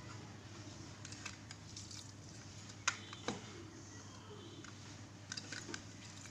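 Faint kitchen handling sounds: scattered light clicks and taps, the sharpest about three seconds in and a small cluster near the end, as cut lemons are handled over a plate beside a pressure cooker of raw beef, with a steady low hum underneath.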